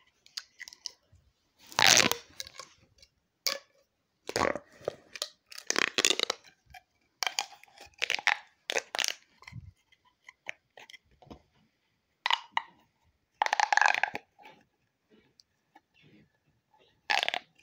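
Irregular crunching and rustling from fidget toys being handled and squeezed close to the microphone, in short bursts with quiet gaps between.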